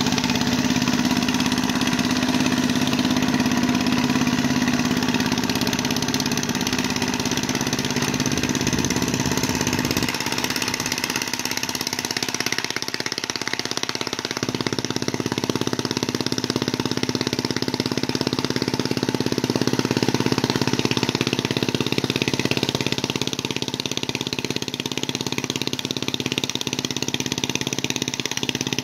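Engine of a mud boat tiller running steadily while it plows a flooded rice paddy, with a change in its note about ten seconds in.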